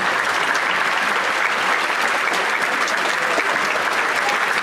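Audience applauding steadily, a dense, even patter of many people clapping.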